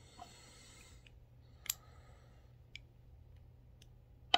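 A brass 300 Blackout cartridge case handled in the fingers: a soft rustle, then a few light metallic clicks, and one sharp click just before the end.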